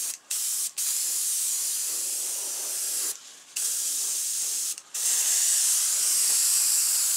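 Airbrush spraying paint: a steady high hiss in several long bursts, stopping briefly three or four times as the trigger is let off and pressed again.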